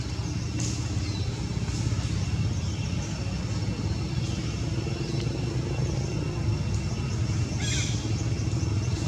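Steady low engine drone of a motor vehicle running nearby, with faint high chirps over it and a short scratchy burst of higher noise about eight seconds in.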